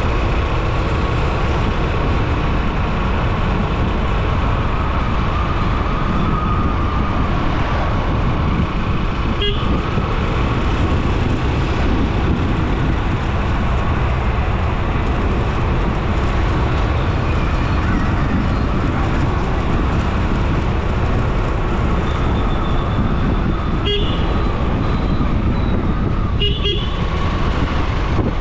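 Steady engine and road noise from a moving vehicle on an open road, with a short horn toot about ten seconds in, another late on, and a quick double toot near the end.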